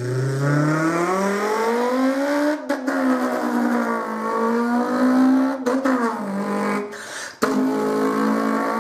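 A person imitating a car engine with their voice, a buzzing "vroom" that climbs in pitch over the first couple of seconds and then holds steady. It breaks off and starts again three times, like a car changing gear.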